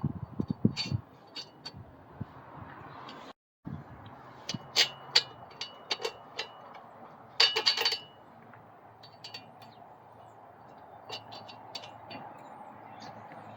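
Metal parts and tools clinking and knocking together in irregular taps, several ringing briefly, with a quick flurry of clinks about halfway through and a few dull thuds at the start.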